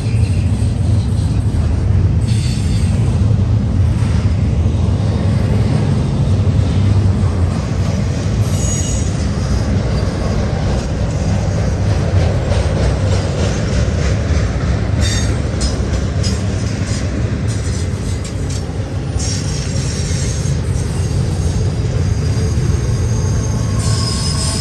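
BNSF freight train running on the steep mountain grade: a steady heavy rumble of wheels on rail and locomotives, with thin high-pitched wheel squeal breaking in about eight seconds in and again near the end.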